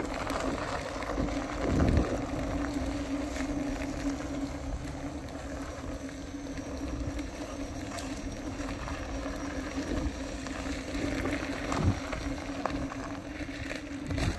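Skateboard wheels rolling over a rough gravel and asphalt path: a steady rumble with a constant low hum, broken by a few knocks from bumps, about two seconds in and again near the end.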